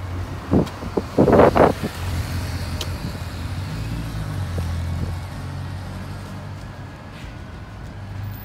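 A motor vehicle's engine running close by, a steady low hum that swells around the middle as it passes. Shortly after the start, a cluster of a few short loud sounds stands out above it.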